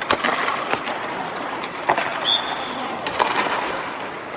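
Ice hockey practice: skate blades scraping across the ice and several sharp cracks of pucks struck by sticks, in an empty arena.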